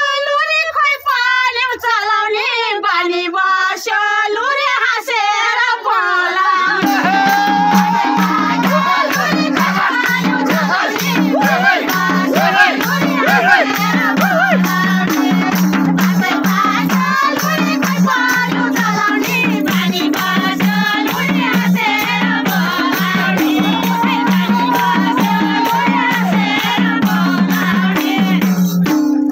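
Women singing a Nepali rateuli folk song together, with hand clapping, a jingling tambourine and a madal hand drum. The drum and tambourine come in strongly about seven seconds in and keep a fast steady beat under the voices.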